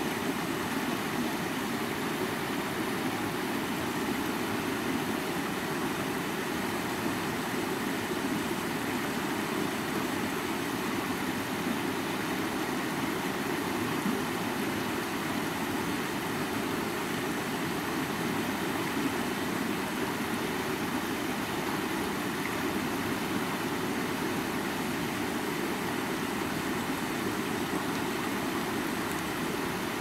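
Shallow rocky river running over stones and small rapids, a steady rushing of water.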